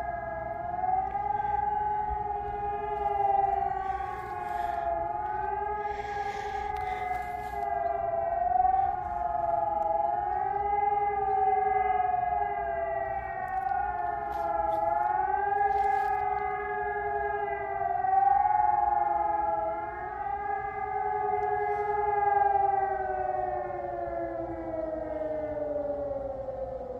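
Several Sonus HES 600 electronic civil-defence sirens sounding the warning signal, a howl whose pitch swings up and down every four to five seconds, the sirens out of step with one another. Near the end all the tones slide down together as the signal winds down.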